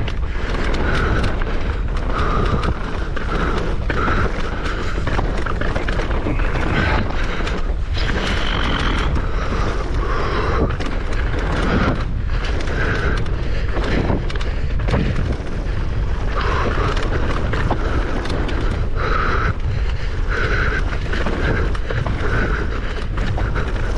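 Mountain bike ridden fast down a rough forest trail: a steady heavy rumble of wind and tyres on the dirt, with frequent knocks and rattles from the bike over roots and rocks, and the rider's heavy breathing. A brief squeal comes about eight seconds in.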